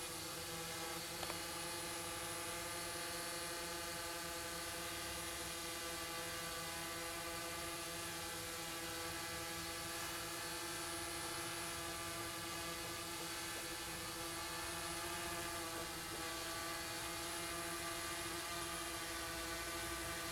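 Iconic X quadcopter's four DYS D4215 650kv brushless motors spinning 10-inch propellers in steady flight: an even, multi-toned buzzing whir that holds its pitch.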